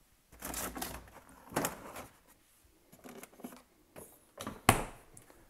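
Items being handled and moved about on refrigerator shelves, with rustling and a few scattered knocks. The loudest, sharpest knock comes near the end.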